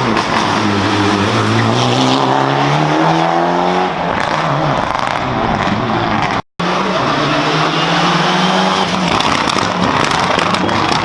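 Rally car engine under hard acceleration, its pitch climbing steadily for about four seconds and then held at high revs. The sound cuts out for a split second about six and a half seconds in, and a rally car engine then runs on at a steadier high pitch.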